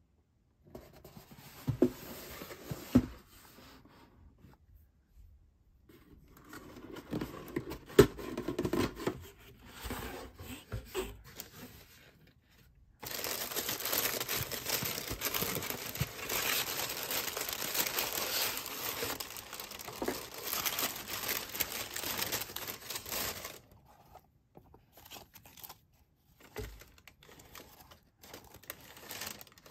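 Cardboard shoebox being handled, with a few sharp knocks and scrapes, then thin white tissue paper crinkling and rustling loudly for about ten seconds as it is unfolded. Softer, scattered handling sounds follow near the end as the foam clog is lifted out.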